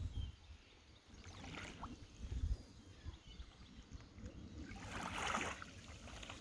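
Calm sea water lapping gently, with one soft wave splash about five seconds in and a few faint seagull calls in the distance.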